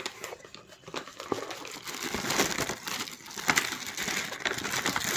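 Packaging being handled and opened, crinkling and rustling with many small crackles.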